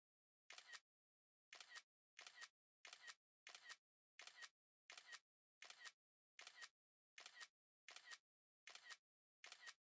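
iPhone camera shutter sound effect, the synthetic two-part 'ka-chick' click, played about fourteen times in a row. The shots come roughly every two-thirds of a second, with a longer pause after the first.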